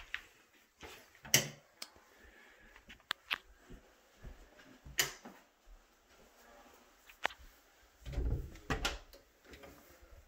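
Scattered sharp clicks and knocks, with a cluster of low thumps about eight seconds in: handling and movement noise as someone walks through a house with a handheld camera.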